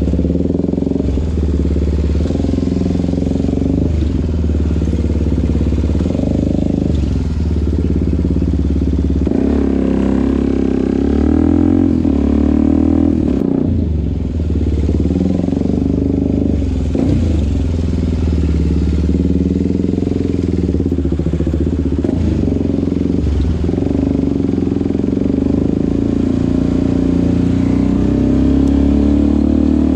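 Suzuki DR-Z400SM's single-cylinder four-stroke engine and exhaust, heard onboard, running at low speed in traffic. The revs rise and fall several times with the throttle.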